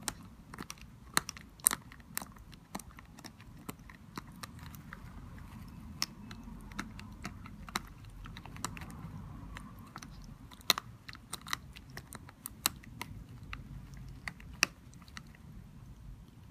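Airedale Terrier puppy gnawing a spiky rubber bone toy: irregular sharp clicks of teeth on rubber, some much louder than others.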